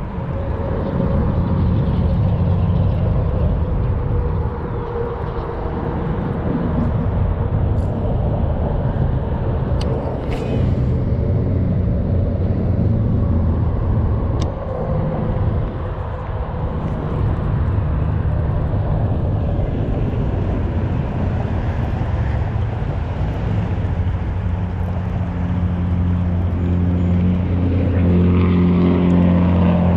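A steady engine drone made of several low hum tones that holds through, then grows louder with its pitch shifting near the end.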